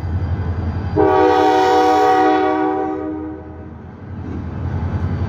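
Norfolk Southern switcher locomotive's air horn sounding one long blast, starting about a second in and lasting about two and a half seconds, over the steady low rumble of the passing locomotive.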